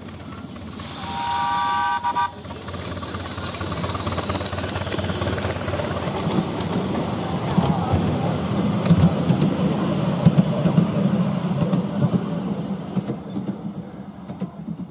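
A miniature steam locomotive blows a short whistle of several pitches at once, held for about a second. Then the rumble and clicking of a miniature train running on the track builds, is loudest past the middle and fades near the end.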